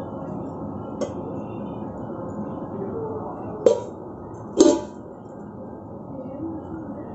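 Steel plate lid taken off a pot of rice cooking over a wood fire and set down, giving three short metallic clinks, the loudest about four and a half seconds in, over a steady background hiss.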